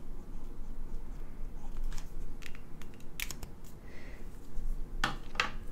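Small clicks and rustles of a crochet hook and lace yarn being handled while working a chain, with a couple of brief, louder rustles near the end.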